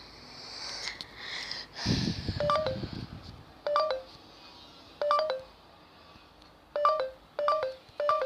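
Short electronic beeps from a mobile phone, six of them at uneven intervals, each a quick two-note tone like keypad or dialing tones. There is a brief low handling rumble about two seconds in.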